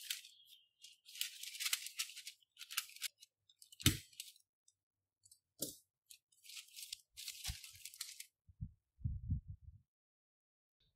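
Baking paper rustling and crinkling as it is folded around a piece of cardboard. A small stapler clicks sharply twice, about four seconds in and again a second and a half later. A few soft low thumps follow near the end.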